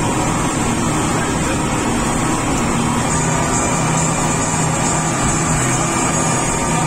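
Speedboat under way at speed: a steady engine drone mixed with the rush of wind and water.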